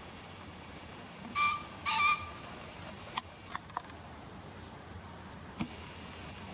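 Male Japanese green pheasant crowing: two short, harsh, loud notes about half a second apart, followed by a few faint clicks.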